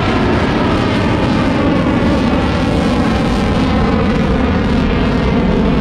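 F/A-18 Hornet's twin jet engines, a loud, steady roar with a faint whine drifting slightly in pitch as the fighter flies its display in landing configuration.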